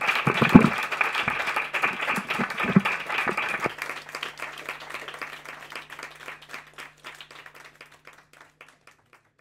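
A small audience applauding, dense clapping that fades away gradually over several seconds to silence. A few low thumps sound in the first three seconds.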